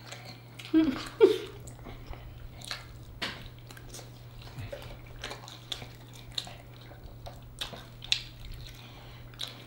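Mouth sounds of two people gnawing chicken wings: scattered wet clicks, smacks and bites as meat is stripped off the bones, with a brief murmur about a second in. A faint steady low hum runs underneath.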